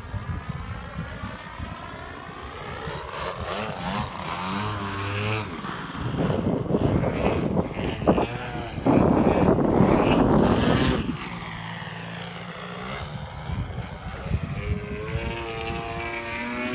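Gas-powered radio-controlled 3D aerobatic airplane's engine and propeller, its pitch rising and falling as the throttle changes and the plane maneuvers. It is loudest as the plane passes low and close, from about six to eleven seconds in.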